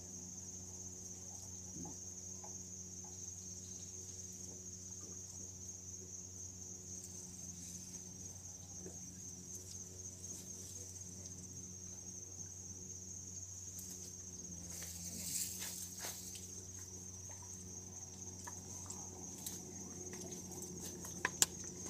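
Crickets trilling steadily at a high pitch, with a faint low hum underneath. There is a brief rustle about fifteen seconds in and two sharp clicks near the end.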